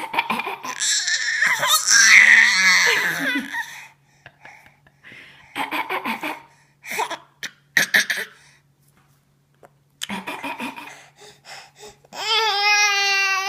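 A baby of about ten months pretending to cough: groups of short, breathy cough-like bursts, with laughter in the first few seconds and a long high-pitched vocal squeal near the end.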